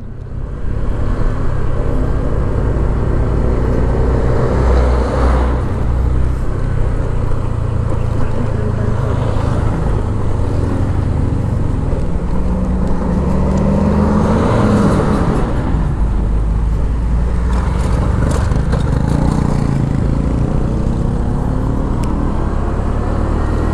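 Motorcycle engine running steadily under way, with wind and road noise on the rider's camera. The pitch swells and drops once about halfway through.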